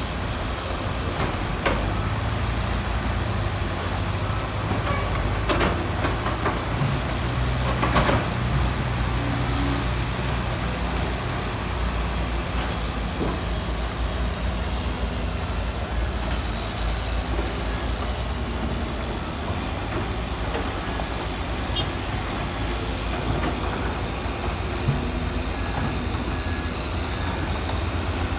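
Heavy construction machine's diesel engine running steadily, with a few short knocks and clanks over it.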